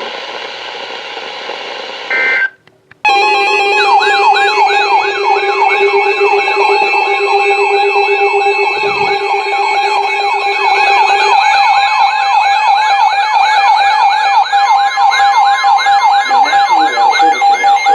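Weather alert radio alarms going off together: an electronic siren wail rising and falling about three times a second over steady tones. It starts after a brief data-like tone burst and a moment of silence. One low steady tone stops about two-thirds of the way through, and a pulsing beep joins near the end.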